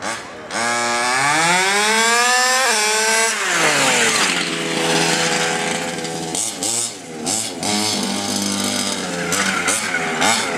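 The 30.5 cc two-stroke engine of a 1/5-scale RC car revving, its pitch climbing for about two seconds, falling away, then running steadier with a few short throttle blips near the middle and the end.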